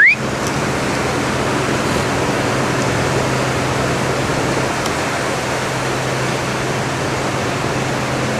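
Steady rushing noise of wind and water on a cruise ship's open deck, over a low steady hum from the ship. A short, loud rising chirp sounds right at the start.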